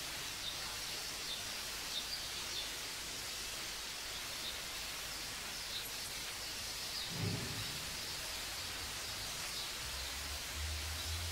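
Steady hiss of an old tape recording during a pause, with faint small ticks. There is a single low thump about seven seconds in, and a low hum comes and goes near the end.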